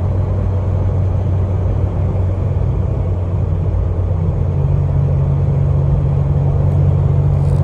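A Jeep Wrangler's 3.6 Pentastar V6 drones steadily inside the cabin at highway speed, with the throttle floored but the engine held at about 4,000 RPM. It is in limp mode and will not rev higher. A second, slightly higher steady tone joins about halfway through.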